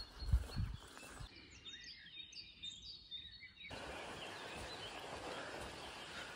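Small birds chirping and singing over an outdoor background hiss, with a few low thumps in the first second. The background hiss drops away suddenly for about two seconds and comes back just as suddenly, leaving the chirps on their own in between.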